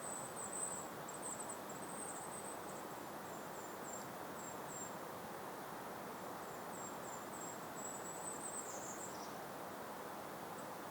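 Two spells of very high, thin, quick chirping notes from a small songbird, the second ending in a short downward slur, over a steady hiss of gentle breeze in open meadow.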